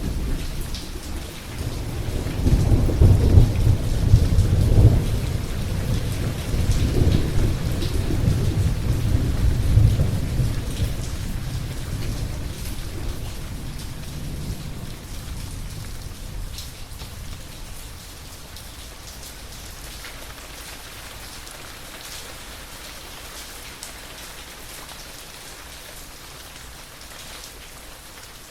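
Thunderstorm: a long rolling peal of thunder builds about two seconds in, rumbles for several seconds and dies away, over steady rain falling on a surface.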